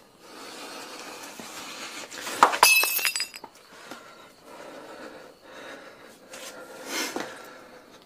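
A glass breaking: a sudden crash about two and a half seconds in, then the pieces ringing and clinking for about a second.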